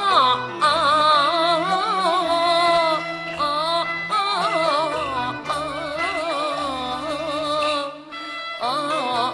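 Cantonese opera music: a wavering, vibrato-laden melodic line in phrases of a few seconds over a low, steady accompaniment, briefly dipping near the end.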